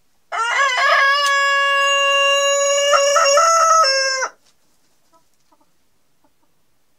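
Denizli rooster crowing once, a single long crow of about four seconds: a short rising opening, then one held note until it cuts off.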